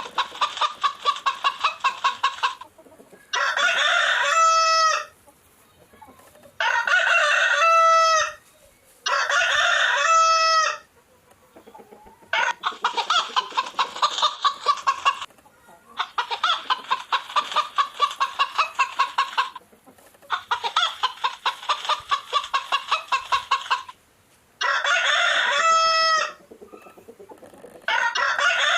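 A rooster crowing about five times, each crow ending in a long held note, alternating with four stretches of rapid chicken clucking a few seconds long. The calls are separated by short silences.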